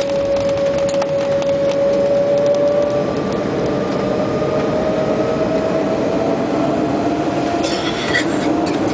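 Embraer E-190 jet engines (GE CF34-10E turbofans) heard from the cabin: a steady whine over a dense rumble, its pitch beginning to climb slowly about three seconds in as the engines spool up.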